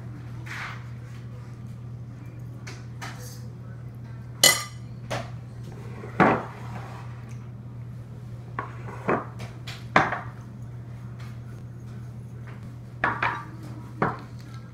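Metal fork clinking and scraping on a ceramic dinner plate while eating, in about eight sharp, irregular clinks a second or more apart, the loudest about four and a half and ten seconds in. A steady low hum runs underneath.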